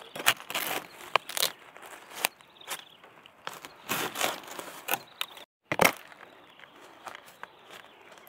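Dry leaves and bamboo twigs crunching and crackling in irregular bursts, with several sharp snaps; the sound cuts out for a moment about five and a half seconds in.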